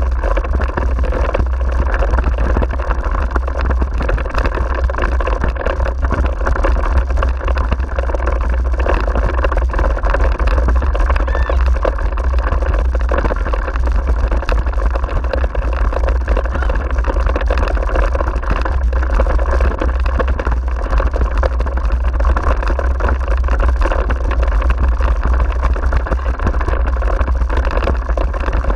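Steady rumble of wind buffeting the camera microphone, mixed with the rattle of a dog-drawn rig rolling fast over a rough grassy forest track.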